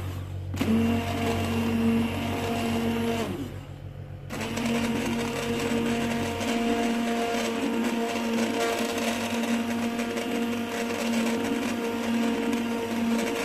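Hand-held immersion blender motor running in a pot of boiled carrot soup, puréeing the vegetables. The motor stops briefly twice in the first few seconds, winding down before the second stop, and starts up again each time.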